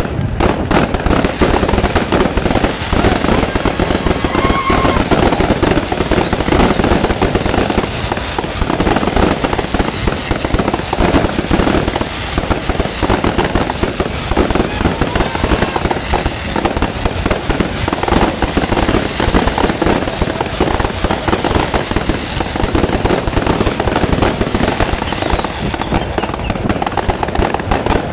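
Fireworks display with many shells going off at once: a dense, continuous barrage of bangs with no let-up.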